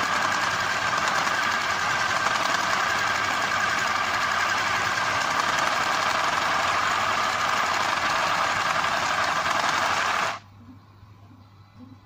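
Small portable electric mini sewing machine running steadily as it stitches fabric, then stopping abruptly near the end.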